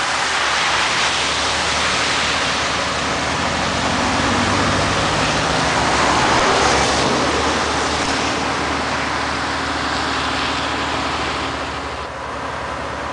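Tyre hiss of a vehicle on the wet road, a rushing noise that swells about six seconds in and fades away, over the low idle of the Scania G112M fire engine's diesel.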